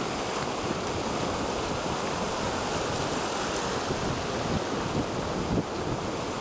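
Steady surf washing ashore, with wind buffeting the microphone.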